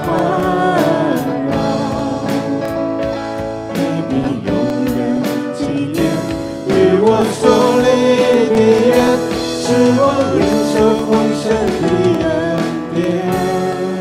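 Worship band music: a sung melody over guitar and sustained chords.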